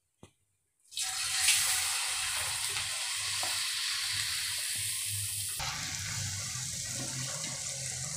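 Bottle-gourd and rice-flour patties sizzling as they deep-fry in hot oil. The sizzle starts suddenly about a second in, as a patty is slipped into the oil, and then runs on steadily.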